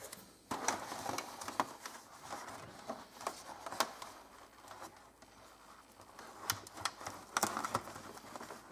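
Duct tape and a plastic RC truck body being handled while wires are taped up inside it: scattered small clicks, crinkles and rustles, sparser in the middle and busier near the end.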